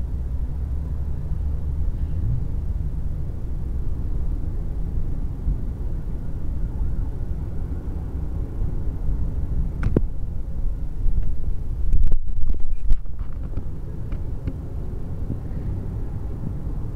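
Steady low rumble of avenue traffic heard from high above, with a sharp click about ten seconds in and a few louder bumps around twelve seconds in.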